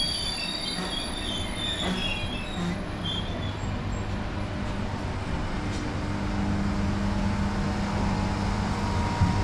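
Bulgarian class 32 electric multiple unit rolling slowly past close alongside. Its wheels squeal on the rails in the first two or three seconds, then give way to a steady rumble, with a low electric hum coming up from about six seconds in.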